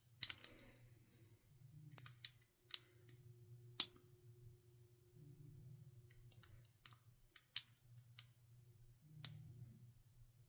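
Picking a Master Lock padlock: irregular sharp metallic clicks and ticks of the lock pick and tension tool working in the keyway, about a dozen, the loudest about a quarter second and seven and a half seconds in.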